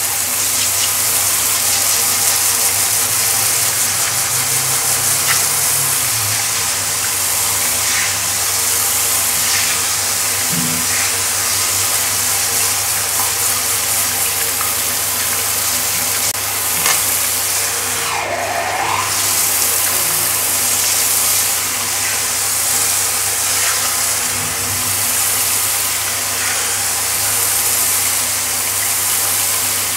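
Handheld shower head spraying water onto a tiled floor, a steady hiss of running water.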